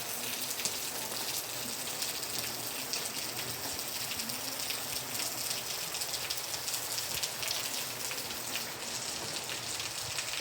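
Steady rain falling, with many separate drops ticking on surfaces throughout.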